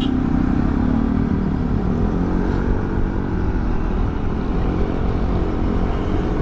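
Scooter engine running hard during a straight-line run, with wind rumbling on the helmet camera's microphone.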